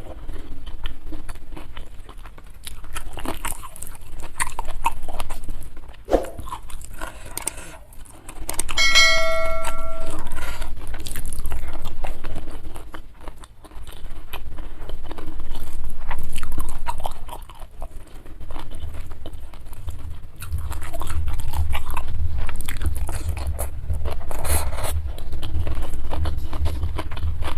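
Close-miked eating: a person chewing and biting into food, with wet mouth clicks and crunches coming in waves. About nine seconds in, a brief steady high tone sounds for about a second.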